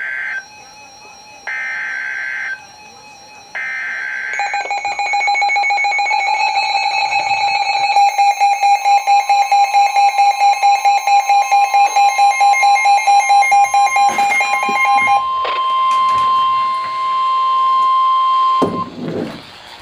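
Emergency Alert System tones: the last short bursts of screeching digital header data, about two seconds apart, then a loud, harsh, rapidly pulsing alarm tone, joined by a steady higher tone that carries on alone for a few seconds after the pulsing stops and cuts off shortly before the end.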